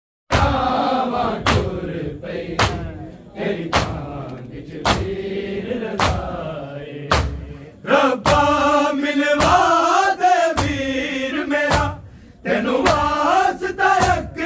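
Men chanting a noha, a Shia lament, with sharp strikes about once a second keeping the beat: the rhythm of matam, hands striking the chest in mourning.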